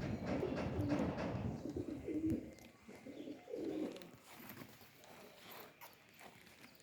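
Pigeons cooing, with a low rumble under them that dies away about halfway through.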